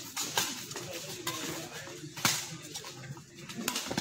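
Badminton rally: rackets striking the shuttlecock in several sharp hits a second or so apart, the loudest about halfway through.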